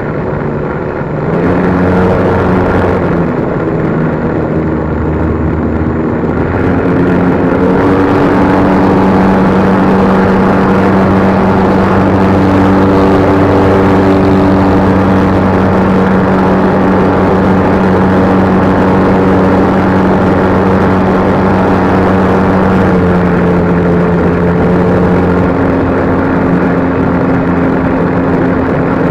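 Radio-controlled plane's motor and propeller running, picked up close by an action camera mounted on the plane, over a haze of wind noise. The drone shifts in pitch a few times and grows louder about seven seconds in, then holds steady.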